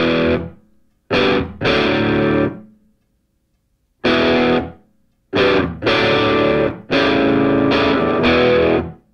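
Distorted electric guitar music in stop-start chord hits: several loud strummed chords, each cut off short, with brief silences between them.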